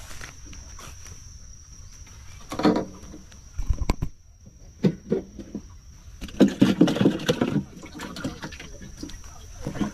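A steady high-pitched insect trill from the swamp, interrupted by several short, louder noises about two and a half, four, five and six to seven and a half seconds in.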